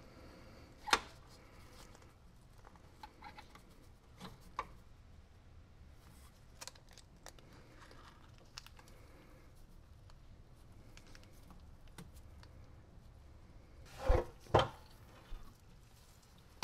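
Scattered light clicks and knocks of hand work with tools and parts, a sharp click about a second in and two louder knocks close together near the end.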